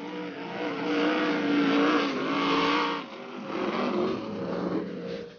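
Racing powerboat engine running hard at speed, its pitch wavering, loudest in the first half and dipping about three seconds in before the sound cuts off abruptly at the end.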